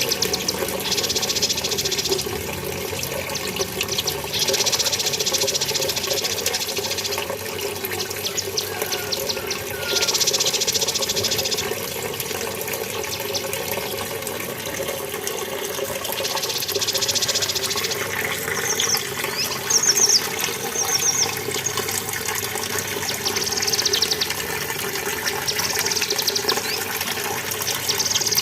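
Cucak kinoi songbird singing in bursts of rapid high trills, each a second or two long, with short whistled notes in the second half, over a steady rush of running water.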